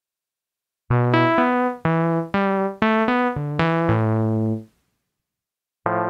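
Omnisphere Unclean Machine 'Cassette Analog Guitar' patch, a lo-fi sampled guitar played from a keyboard. Starting about a second in, it plays a short phrase of about eight plucked notes and chords, each ringing briefly. After a second of silence, a new sustained chord begins near the end.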